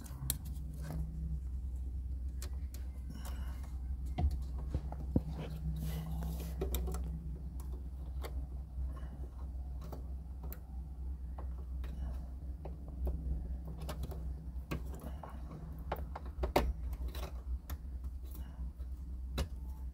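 Small plastic clicks and rustles of hands working instrument-cluster wiring connector plugs wrapped in double-sided tape, pressing them in to sit firmly, over a steady low hum.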